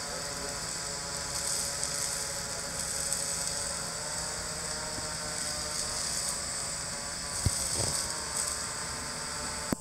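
Aeryon SkyRanger quadcopter hovering, the steady buzz of its four rotors mixed with the hiss of heavy water spray from a fire hose falling over it like rain.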